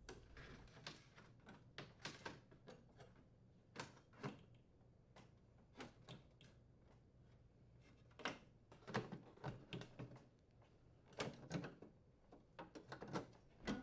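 Faint, scattered clicks and light knocks as the oven door's inner and outer panels are handled and fitted together, a little busier in the second half.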